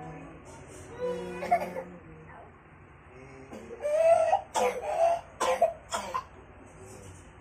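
A person coughing: a run of several harsh coughs between about four and six seconds in, with softer throaty sounds about a second in.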